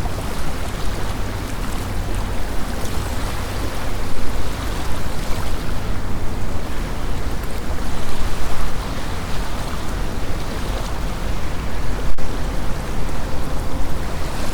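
Wind blowing in gusts over a lake, with small waves lapping on the shore; the noise swells and eases every few seconds.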